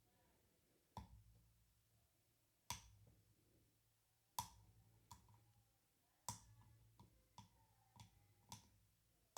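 Faint, sharp clicks at uneven intervals, about eight of them, as a lock pick works the pin tumblers of a padlock clamped in a vise.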